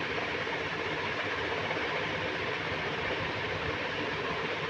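Steady background hum and hiss of a running machine, even throughout with no knocks or clicks.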